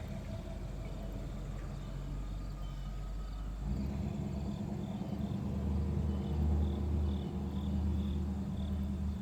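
Insects chirping in short repeated pulses, about two a second, over a low steady hum that gets louder about four seconds in.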